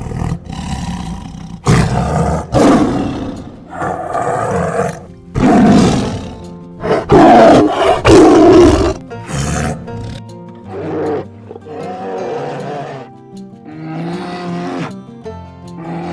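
Big cat roaring in a series of loud calls, the loudest about seven to nine seconds in, over background music.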